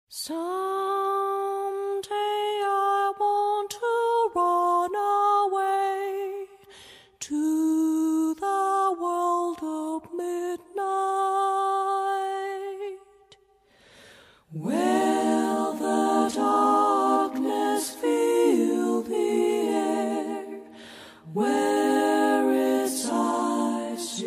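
Background music: unaccompanied voices singing a slow melody in harmony, with a short break a little past halfway through.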